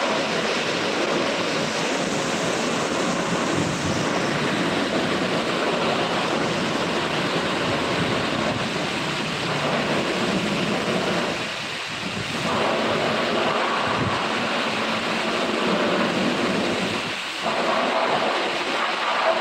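High-pressure water spray from a car-wash pressure washer hitting a pickup's bodywork: a steady rushing noise that cuts out briefly twice, past the middle and near the end, as the spray stops and restarts.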